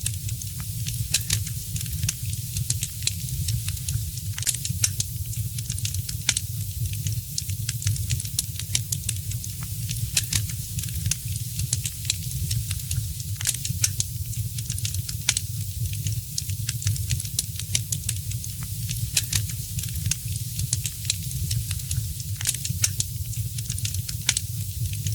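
Fireplace fire crackling: frequent sharp pops and snaps, irregular and close together, over a steady hiss and a low rumble.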